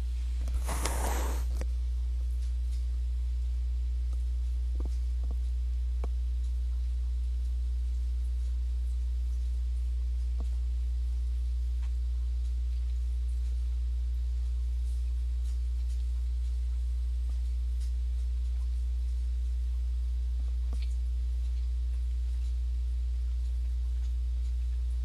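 Steady low electrical hum throughout, with a brief rustle about a second in and a few faint clicks.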